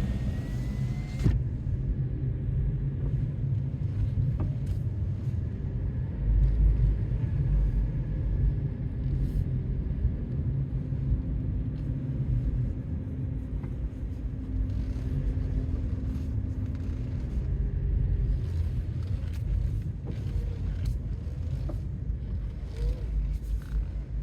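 Car rumbling steadily at low speed, heard from inside the cabin, with a few faint clicks and a brief hum partway through.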